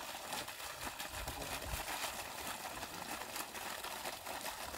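Water gushing from a solar pump's discharge pipe and splashing onto the dry, leaf-strewn ground: a steady hiss.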